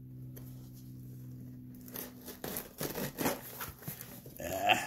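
Steak knife sawing through the packing tape along a cardboard box's seam: irregular scraping and tearing strokes that start about two seconds in.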